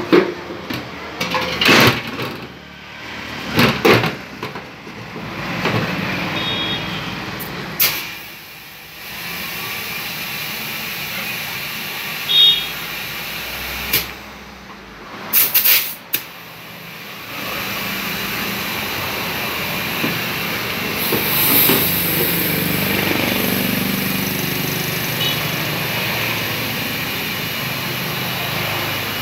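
Compressed air from a workshop air hose hissing steadily into a motorcycle fuel tank through its filler neck, pressurising it to push out the dents. Sharp clicks and knocks come in the first few seconds and again near the middle.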